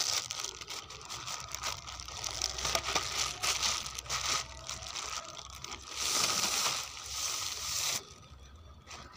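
Thin plastic bag crinkling and rustling as a plastic cricket bat is pulled out of it, a busy crackle of small clicks that stops abruptly about eight seconds in.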